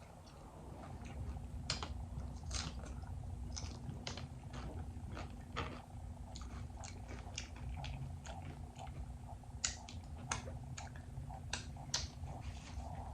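A person chewing a mouthful of nacho chips loaded with cheese, with scattered sharp crunches and wet mouth clicks, over a low steady hum.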